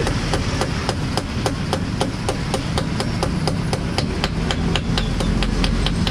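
Rapid, evenly paced hammer taps on metal, about four a second, as a new steering-head bearing is driven into a Kawasaki Z1000's steering head. A low background rumble runs underneath.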